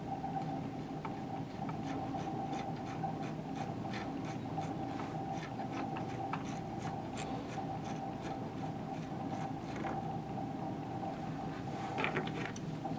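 Rod-wrapping thread being wound by hand onto a rod blank: a soft scratchy rubbing with many faint ticks, over a steady faint hum.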